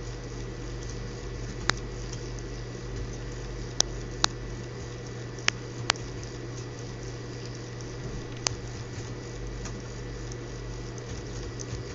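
Six sharp single clicks at irregular intervals, over a steady electrical hum and hiss.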